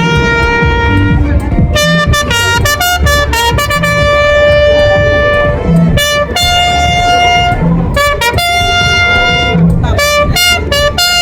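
Music led by a wind instrument playing a melody of long held notes over a full backing.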